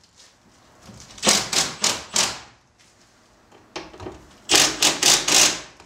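Cordless power driver run in short bursts, three about a second in and three more near the end, backing out the bolts that hold a truck's door mirror.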